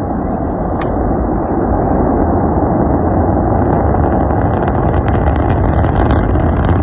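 Loud, steady rumbling roar of a rocket, growing slightly louder, with crackling coming in from about four seconds in. A single sharp click a little under a second in.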